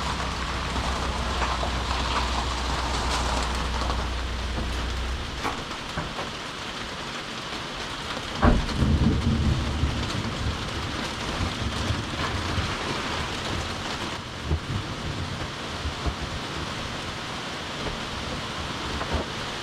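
Steady rain hissing, with a sudden crack of thunder about halfway through that rolls on as a low rumble for a couple of seconds. A low steady hum drops out about five seconds in.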